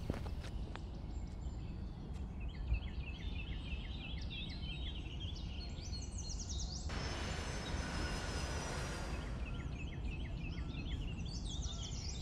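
Birds chirping in quick, repeated short calls over a steady low rumble of outdoor ambience, with a rush of noise lasting about two seconds just past the middle.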